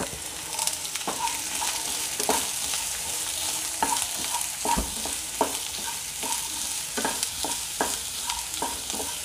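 Chopped onions sizzling in hot oil in a non-stick frying pan while being stirred with a flat spatula, which scrapes and taps against the pan at irregular intervals, about once or twice a second.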